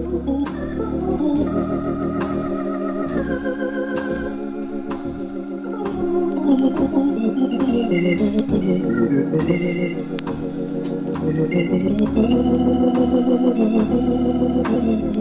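Jazz on Hammond organ: held, shimmering chords over low bass notes, with light cymbal strokes from the drums. It swells louder about halfway through and again near the end.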